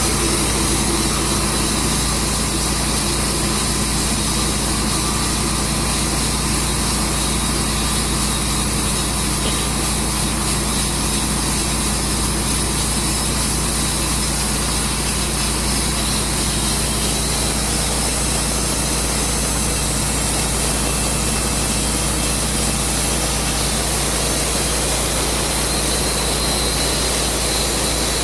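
Tru Cut sawmill running steadily under load, its engine and blade cutting through a walnut log.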